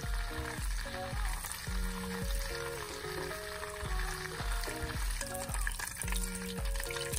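Background music with a steady bass beat over a pan sizzling on the stove, a fine continuous crackle.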